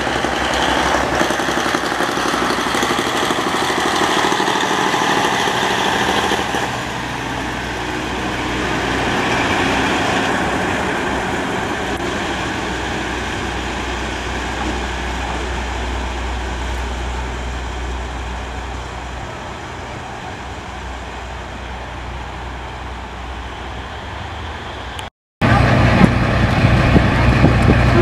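KiRo 47 diesel railcars' engines running steadily with an even low hum, a little quieter after the first few seconds. Near the end the sound cuts out for a moment and comes back louder.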